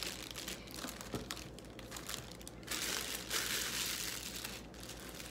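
Plastic packaging crinkling and rustling as it is handled, loudest for a couple of seconds past the middle.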